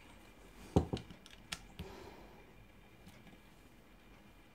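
A few small, sharp metal clicks, bunched between about one and two seconds in, as a tool works the circlip off the centre of a small engine's recoil starter pulley.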